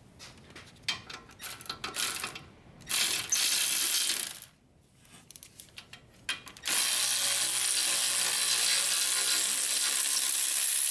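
Cordless electric ratchet backing out a front brake caliper bracket bolt. A few short clicks and brief bursts, then a run of about a second and a half, and then the motor runs steadily for about the last four seconds as the bolt spins out.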